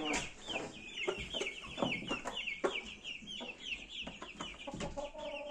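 Young roosters in a coop calling: a quick run of short, high, falling chirps, about five a second, that fades out about three and a half seconds in, mixed with a few lower clucks.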